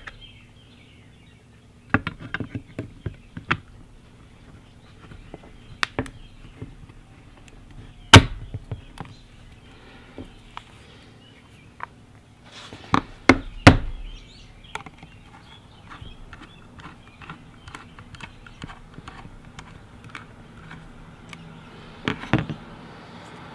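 Scattered clicks and knocks of a Crosman 761XL multi-pump air gun being handled as its receiver half is fitted back on. There is a single sharp click about eight seconds in, a cluster of knocks around thirteen to fourteen seconds, and another pair near the end.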